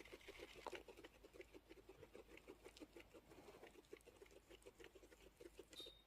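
Guinea pigs making a faint, fast rhythmic pattering of about seven or eight short pulses a second, with small clicks scattered over it.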